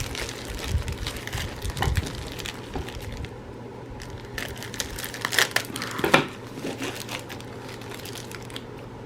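Plastic packaging of a diamond painting kit crinkling and rustling as it is handled and opened, with scattered sharp crackles that are loudest a little past the middle.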